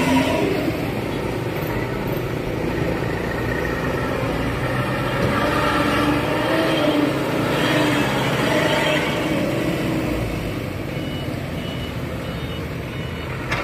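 Light diesel truck engines running as a loaded dump truck moves off and a second loaded truck drives past, loudest about six to nine seconds in. A faint, repeating high beep comes in near the end.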